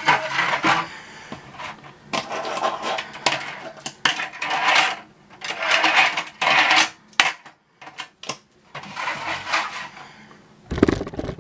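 Hard plastic sections of a Tech Deck transforming pipeline fingerboard ramp being handled and fitted together: bursts of plastic rubbing and sliding with sharp clicks, and a heavier knock near the end.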